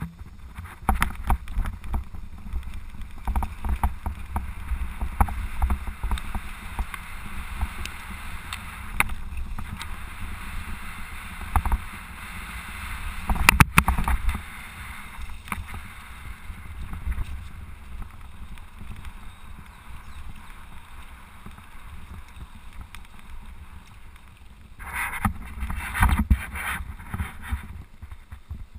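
Mountain bike riding down a dirt trail: tyres rolling over dirt and leaves and the bike rattling over bumps, over a steady low rumble. Heavier knocks come about halfway through and again near the end.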